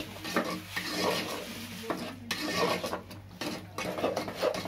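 Metal spatula scraping and stirring a thick khoya, sugar and milk mixture against the sides and bottom of an aluminium pot, in a run of irregular strokes. The mixture is cooking on the flame until the sugar melts.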